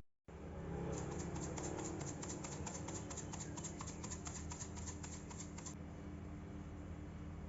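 A kitchen knife cutting on a cutting board in quick, even strokes, several a second, which stop near the end, over a steady low hum.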